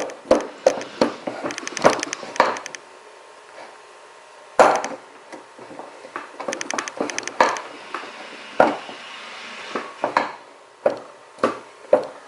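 Sharp knocks and clicks from a VW O2J shifter mechanism being worked back and forth by hand, with two short runs of rapid rattling ticks.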